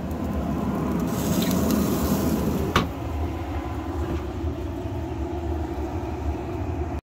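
A pellet grill's metal lid shutting with a single knock about three seconds in, over a steady low rumble.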